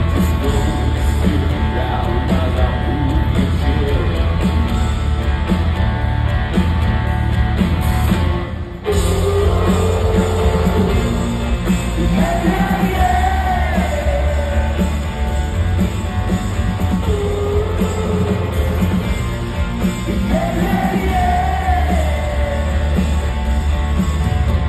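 Live rock band playing loud through an arena PA: heavy drums and bass with sung vocals. The music breaks off for a moment about nine seconds in and then comes straight back.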